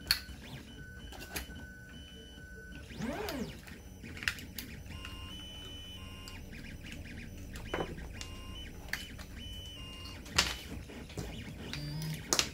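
Sharp clicks and knocks of the plastic RC truck chassis and parts being handled and worked with a screwdriver, the loudest about ten seconds in and near the end. Quiet background music with steady stepping synth tones plays underneath.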